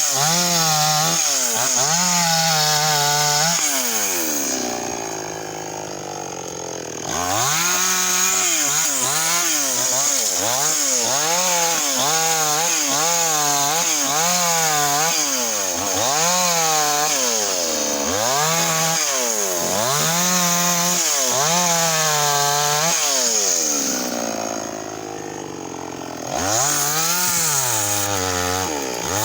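Chainsaw cutting wood, its engine pitch sagging and recovering about once a second. Twice it drops back to a low, quieter run for a couple of seconds before revving up again.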